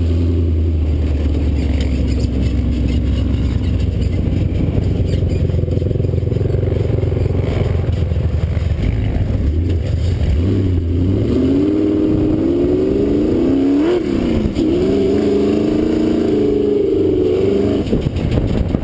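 Dune buggy engine running under load while driving over sand. From about eleven seconds in, its pitch repeatedly rises and falls as it revs up and down.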